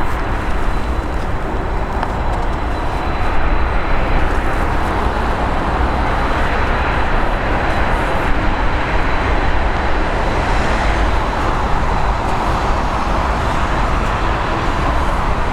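Jet airliner engine noise: a steady rushing sound with a thin high whine held throughout, swelling slightly in the middle.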